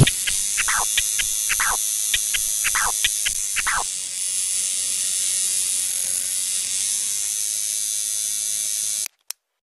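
Steady electric buzz of a tattoo machine as a sound effect, with a run of short falling swishes over it in the first four seconds; the buzz cuts off abruptly about nine seconds in.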